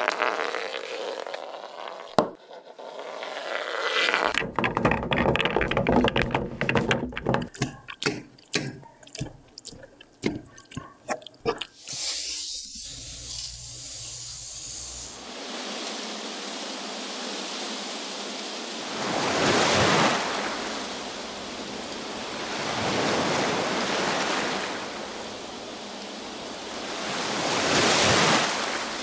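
A run of sharp taps and clicks that come faster and closer together, then the hiss of sea waves that swells and falls back three times, like surf washing in on a shore.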